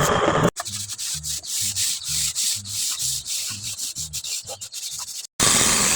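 Wood being hand-sanded with quick back-and-forth strokes, about two a second. A louder steady noise is heard briefly at the start and again near the end.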